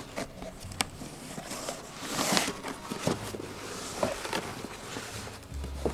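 Cardboard accessory box being opened and its contents handled: scattered knocks and clicks, with a longer rustle about two seconds in.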